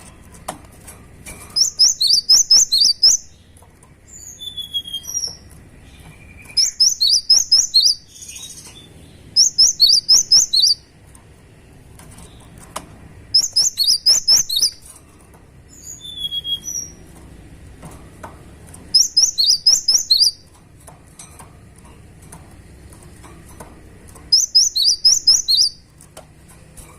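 Cinereous tit (gelatik batu) in full song: repeated bursts of rapid, high, sharp notes every three to five seconds, with a few single falling whistles between the bursts.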